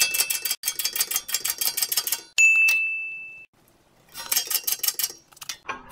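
Typewriter sound effect: runs of rapid key clacks, with a carriage-return bell dinging once about two and a half seconds in, then more clacking.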